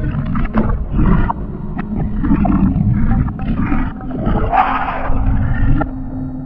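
A deep, rasping monster growl, a horror sound effect, rising and falling in waves.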